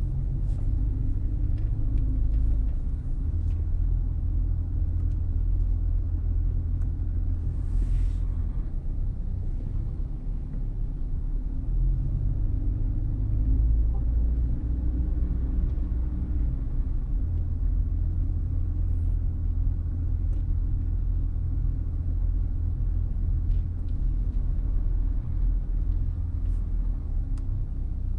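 Steady low rumble of a car's engine and road noise while it drives.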